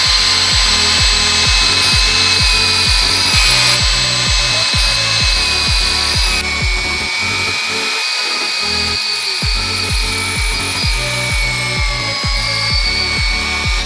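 An electric drill spins a high-speed reamer through a valve guide in an aluminium cylinder head with a steady whine that dips slightly near the end. The worn guide bore is being reamed out to take a bronze liner. Background music with a steady beat plays underneath.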